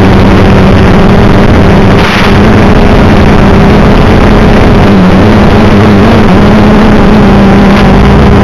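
Black Mamba H-quad FPV quadcopter's motors and propellers humming steadily under a loud hiss, the pitch dipping briefly about five seconds in as the throttle changes.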